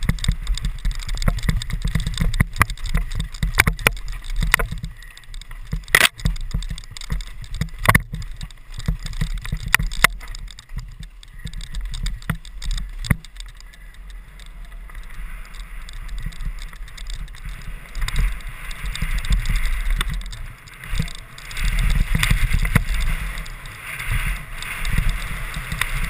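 Mountain bike ridden fast down a dirt trail: wind buffeting the mounted camera's microphone in a heavy rumble, tyres hissing over the loose dirt, and the bike knocking sharply over bumps several times.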